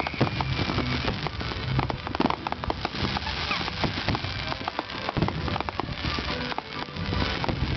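Fireworks display: a dense, continuous crackle of many small rapid reports, with a few heavier booms mixed in.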